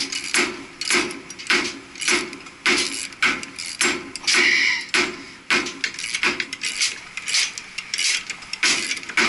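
Repeated metal-on-metal hammer blows, about two a second, on a gear puller fitted to a coupling hub on a gearbox shaft, driving the hub off. One longer, brighter sound comes about four and a half seconds in.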